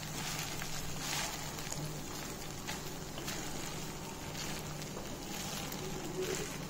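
Part-boiled basmati rice sizzling softly in hot ghee in a heavy kadhai, turned gently with a wooden spatula that scrapes the pan now and then.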